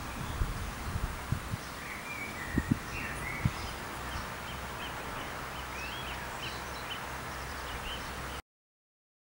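Outdoor park ambience: small birds chirping in short calls over a steady background hiss, with a few low thumps in the first few seconds. The sound cuts off to silence near the end.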